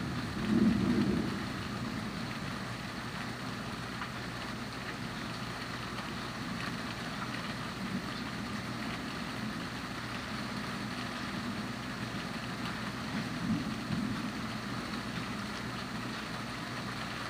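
Steady rain falling, with a constant fine patter. A low rumble swells about a second in and again briefly later.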